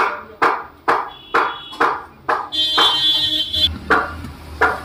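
A steady percussive beat of sharp knocks, a little more than two a second, with a brief high ringing tone over it from about halfway through.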